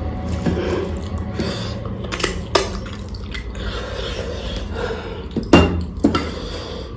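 Close-up eating sounds from a meal of curry and rice: chewing and wet mouth sounds over a steady low hum, with four sharp clinks of a dish, the loudest about five and a half seconds in.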